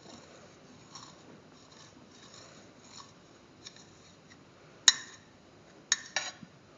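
A knife cutting through a bread sandwich, with faint soft scraping, then one sharp knock about five seconds in and two lighter clicks about a second later.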